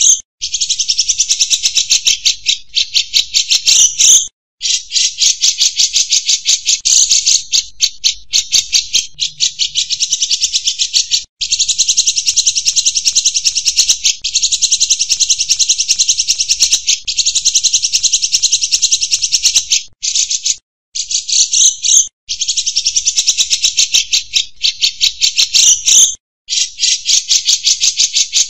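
White-rumped shama (murai batu) giving a harsh, very rapid rattling call. It runs for several seconds at a time, broken by a few short pauses.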